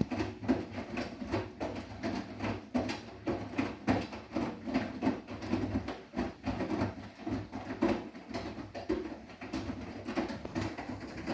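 Bosch front-loading washing machine mid-wash on a hot 90°C cotton cycle: the drum turning with a steady motor hum while wet laundry and water slosh and thud irregularly inside.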